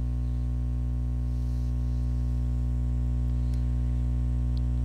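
Steady electrical mains hum with a stack of evenly spaced overtones, loudest in the low bass.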